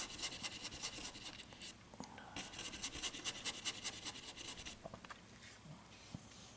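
Paintbrush loaded with oil paint scrubbing across a painting board in quick, short strokes, several a second, pausing briefly about two seconds in and growing sparser after about five seconds.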